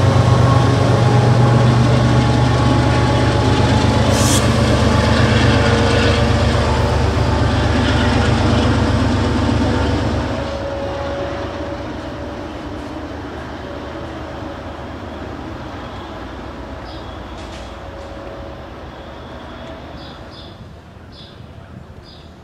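MBTA commuter train of bi-level coaches and diesel locomotive passing close, a loud steady rumble of wheels on rail with a strong low hum. About ten seconds in it becomes quieter, and it fades steadily as the train runs off into the distance. A few short high chirps sound near the end.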